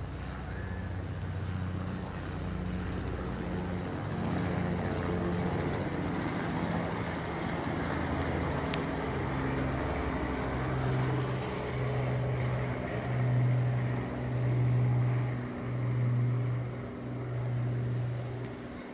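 Helicopter flying past, a steady engine and rotor drone that grows louder in slow swells near the end.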